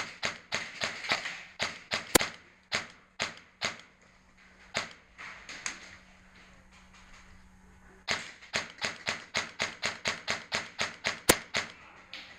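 Airsoft guns firing in quick single shots: a run of pops at first, a few spaced shots, a lull, then a steady string of about four to five shots a second. Two of the cracks are much sharper and louder than the rest.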